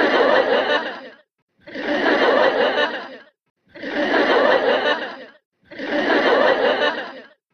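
An edited-in laughter sound effect: the same clip of laughing, about a second and a half long, played four times with short dead-silent gaps between.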